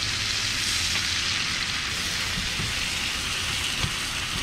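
Speckled trout fillets frying in melted butter in a skillet: a steady sizzling hiss.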